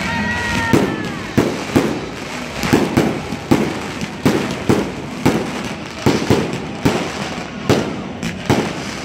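Aerial fireworks bursting in quick succession, a sharp bang about every third to half second, with a whistle falling away in the first second.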